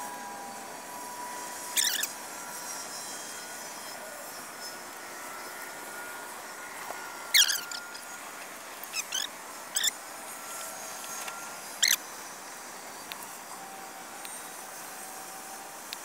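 Fire burning over a gasoline-fuelled small engine: a steady rush of flame with about five sharp crackles and pops, the loudest about a third of the way in.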